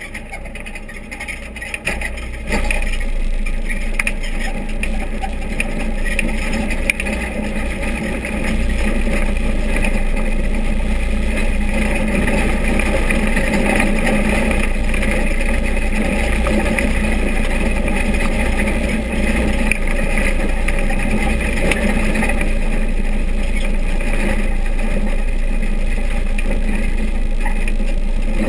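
Vintage dirt-track stock car's engine and running noise heard from inside the cockpit as it drives laps, a steady loud rumble. It gets louder about two and a half seconds in and again around eight seconds, then holds steady.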